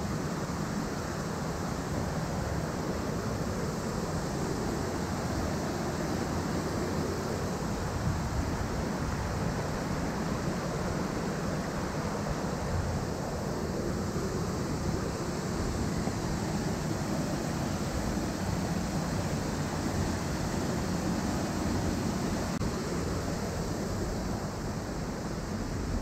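Steady rush of a rocky mountain stream, water tumbling over boulders.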